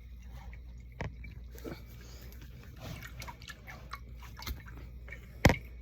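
Food containers and bottles being taken out of a fridge and set down: light knocks, clicks and rustling, with one sharp knock near the end.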